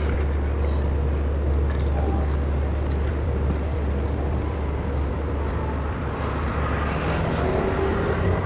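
Steady low rumble of a large motor yacht's engines as it manoeuvres and begins to move off, with a few faint humming tones coming in near the end.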